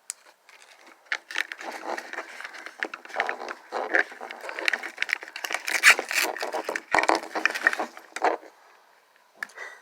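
Small plastic packaging crinkling and rustling as it is handled, with many irregular clicks and crackles, stopping about a second before the end.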